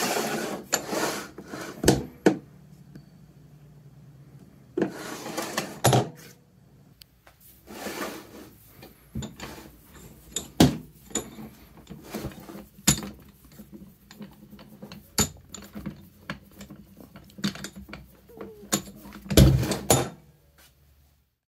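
Vintage Wilton 9300 'Bullet' bench vise being worked by hand: the jaw screw turning and the sliding jaw moving give stretches of scraping metal, loudest near the end. Sharp metal clicks and clanks come every second or two.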